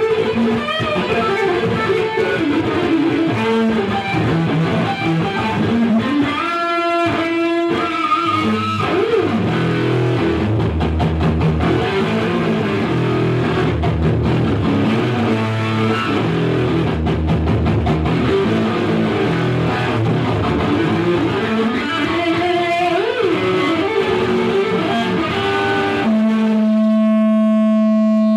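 Electric guitar played through a Marshall amplifier turned up to 10: a run of picked notes and chords. It ends on one long held note near the end.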